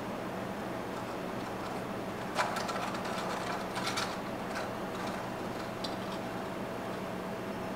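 Ice cubes clinking against a glass jar as an iced drink is stirred with a straw: a cluster of light clinks from about two and a half to four seconds in, then a couple of single clinks, over a steady low hum.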